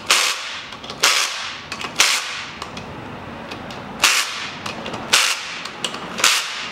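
Sharp metallic clacks, about one a second, each with a short ringing tail, from hand tools working the crankshaft main bearing cap bolts on the engine block.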